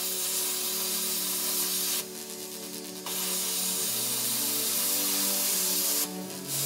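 Plasma cutter cutting through a metal plate: a steady hiss of the arc and air jet that stops for about a second about two seconds in and again briefly near the end. Soft background music plays underneath.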